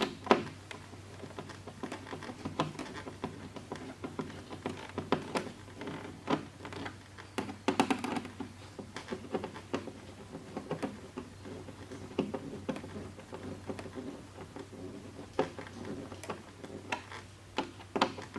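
Hands working on a foam model airplane: irregular light clicks, taps and rustles of handling the foam and plastic parts and tools, over a steady low hum.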